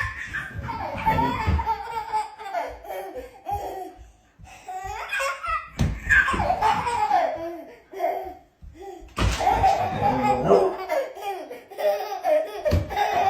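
A baby laughing in several bouts of belly laughs, with short breaks between them.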